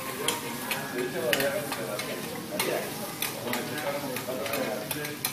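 Food sizzling on a hot teppanyaki griddle, with metal spatulas scraping and clicking against the steel plate in irregular sharp strikes.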